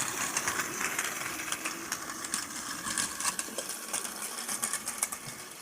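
Battery-powered Plarail toy train, a D51-type steam locomotive model (Hiro), running on plastic track: a small motor whirring under a fast, busy clatter of wheels and couplings, growing fainter near the end.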